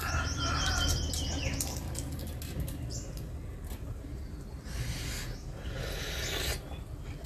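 Shell of a boiled duck egg (balut) crackling as it is peeled by hand, a run of small clicks about two seconds in, then biting and chewing with two short noisy breaths near the end. A steady low hum underneath.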